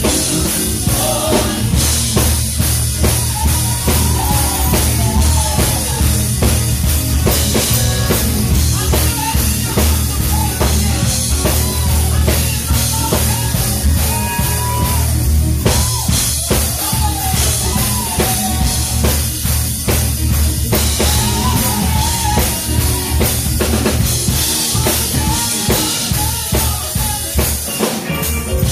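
Live gospel band music with a drum kit and bass playing a steady beat, and a wavering melody line over it.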